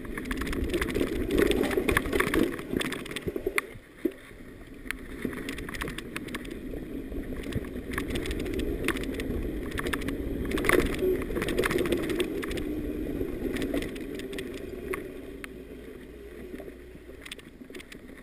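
Mountain bike descending a rough, bumpy dirt trail: steady rumble of the tyres over the ground, with many sharp clicks and rattles from the bike shaking over the bumps. The noise is loudest in the first few seconds and again in the middle, and eases off near the end.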